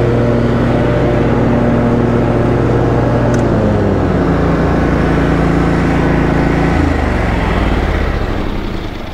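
Snapper Pro walk-behind mower's engine running under throttle, then slowing in steps about four and seven seconds in and dying away near the end as it is throttled down and shut off.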